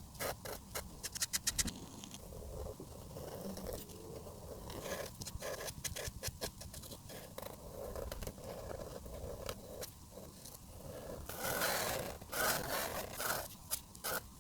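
Marker tips scraping across paper in quick, repeated strokes, with rapid little ticks between them and a denser run of strokes near the end.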